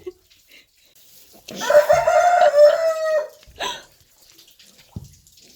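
A rooster crowing once, a single call of about two seconds held at a fairly level pitch, starting about a second and a half in.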